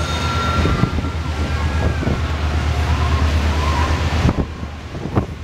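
Wind buffeting the microphone on an open tour boat, a heavy low rumble over a rushing noise, easing abruptly about four seconds in.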